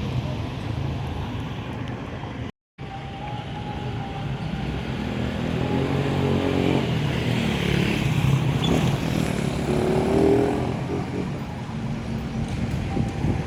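Street traffic: motor vehicle engines running steadily. One engine grows louder through the middle and peaks about ten seconds in, then eases off. The sound cuts out completely for a moment about two and a half seconds in.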